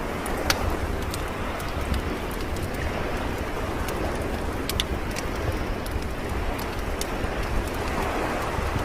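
A wood fire crackling with scattered sharp pops over a steady wash of ocean surf.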